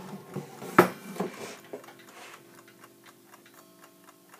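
Small old wind-up mechanical clock ticking quickly and evenly, running. Its first second or so is covered by a few knocks from the clock being handled, the loudest a little under a second in.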